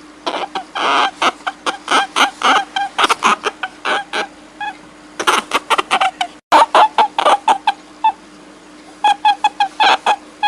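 An animal's short, pitched calls repeated rapidly, about five a second, in bouts with brief pauses between them. The sound cuts out for an instant about six and a half seconds in, then the calls resume.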